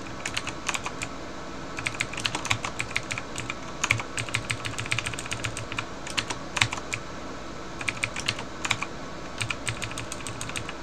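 Computer keyboard being typed on: quick runs of keystrokes, many of them the same key pressed several times in a row, broken by short pauses.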